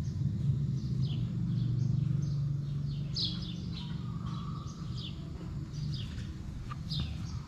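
Small birds chirping outdoors: short, downward-sliding chirps repeating about once or twice a second, over a steady low background rumble.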